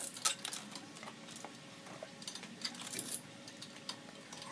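Steel hoist chain clinking and rattling as it is handled, in scattered irregular clinks.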